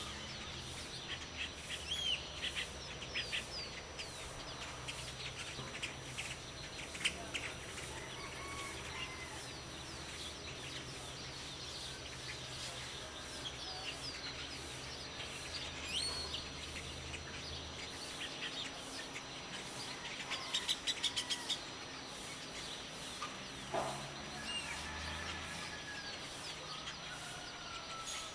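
Dawn chorus of many birds chirping and whistling, short overlapping calls throughout, with a fast trill of repeated notes about two-thirds of the way in. A low steady hum runs underneath and stops a little past halfway.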